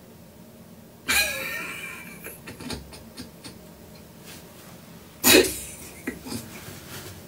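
A woman bursting into laughter about a second in, trailing off over a second or so, then a second short, loud burst of laughter about five seconds in.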